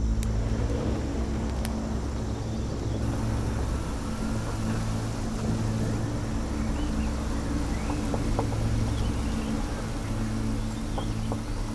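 Safari vehicle's engine running steadily while driving, a low hum under road and wind noise, with a few faint high chirps over it.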